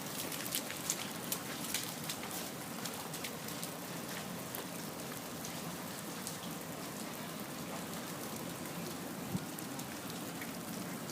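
Storm precipitation pattering steadily on surfaces, with scattered sharp ticks of individual drops or pellets striking, more of them in the first few seconds.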